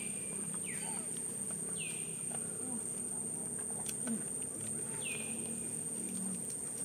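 Steady high-pitched drone of insects, with a short falling call repeated about five times at irregular one-to-two-second gaps.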